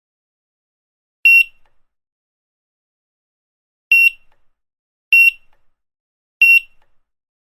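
Grocery checkout barcode scanner beeping: four short, high beeps at one pitch, spaced unevenly, with silence between them.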